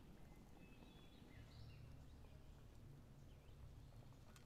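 Near silence: faint outdoor ambience with a few short, faint high chirps like birds, a low hum, and a single soft click near the end.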